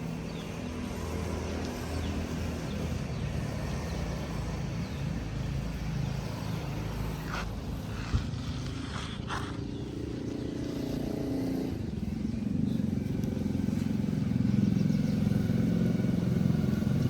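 An engine running steadily, growing louder about twelve seconds in, with a single sharp click around the middle.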